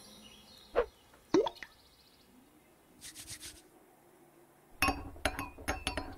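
Cartoon sound effects: two short plops about a second in, then near the end a quick run of clinks from a small spoon stirring in a drinking glass.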